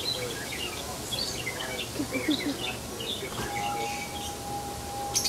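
Birds chirping in many quick, short high calls among the trees. A single long steady whistled note comes in a little past halfway, and a few sharp clicks sound near the end.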